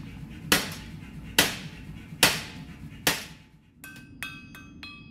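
A hand hammer strikes a red-hot carbon steel rod, shaping a pan handle: four ringing blows, a little under a second apart, over a steady low rumble. Near the end, a run of quick chiming music notes begins.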